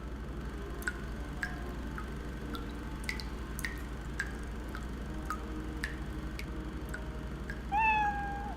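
Water dripping drop by drop, about two drips a second, each a short plink. Near the end a cat meows.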